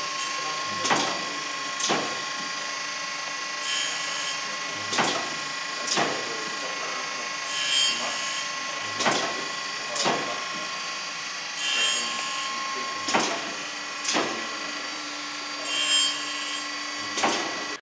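Automatic band saw blade sharpening machine running its grinding cycle: a steady motor hum, sharp clicks in pairs about a second apart, and a short grinding hiss about every four seconds as the blade is advanced tooth by tooth and ground.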